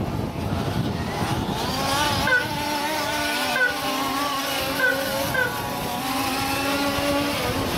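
Several 1/5-scale petrol RC buggies racing, their small two-stroke engines revving up and down over one another. One engine holds a steady note for several seconds in the middle.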